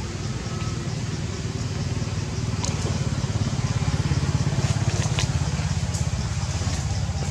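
A low engine running steadily with a fast pulsing hum, swelling a little in the middle, with a few faint clicks over it.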